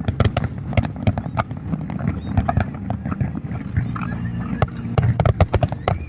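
Fireworks going off: a rapid, irregular run of sharp bangs and crackles over a steady low rumble.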